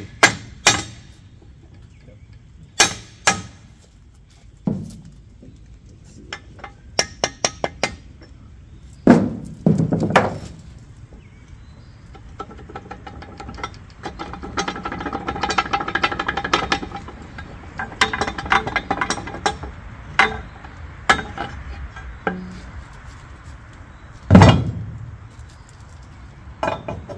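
Rubber mallet knocking on the steel quick-disconnect pin of a mini excavator's manual thumb to drive it out, in scattered blows and a quick run of taps. Steel parts then clink, scrape and ring as the thumb is worked off its mount, with a heavy thump near the end.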